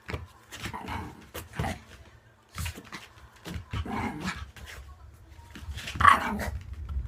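Mame shiba dog making short cries during ball play, mixed with scattered short knocks and clicks; the loudest cry comes about six seconds in.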